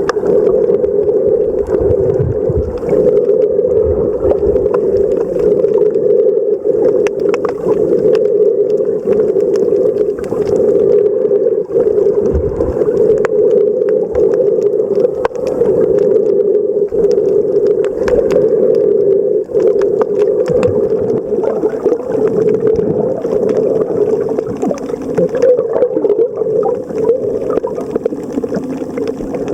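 Underwater ambience heard while snorkelling in the sea: a steady muffled hum of moving water, with scattered sharp clicks and a few low thumps from the swell.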